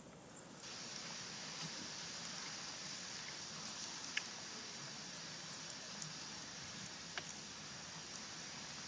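Faint, steady outdoor background hiss that starts about half a second in, with a few soft ticks scattered through it.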